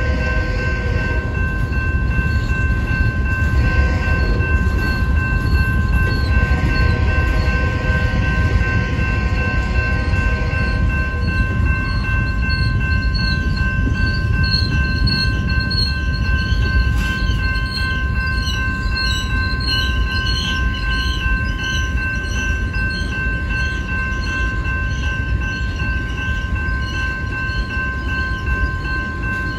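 Freight cars (covered hoppers and tank cars) rolling through a grade crossing: a steady low rumble of steel wheels on the rails. A grade-crossing warning bell rings steadily over it, and a run of repeated high squeals comes and goes in the middle.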